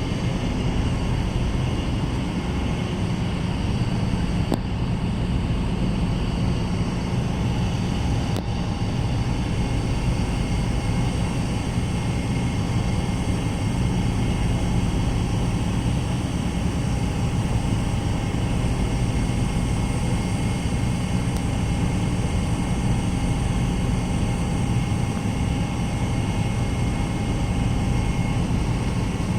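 Steady drone of a car ferry's engines and machinery heard from on board, a constant low hum with a few faint steady whines above it as the ship gets under way.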